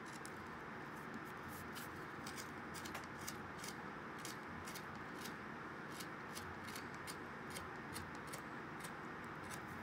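Faint, irregular small clicks and scrapes, about two or three a second, of a Power Grip U-gouge cutting along a knife line in a wood block as the chips pop out, over a steady low hiss.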